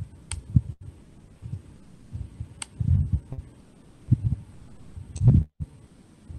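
Irregular muffled low thumps, loudest about three seconds in and again near the end, with three sharp computer-mouse clicks spaced about two seconds apart while the shared screen is switched between windows.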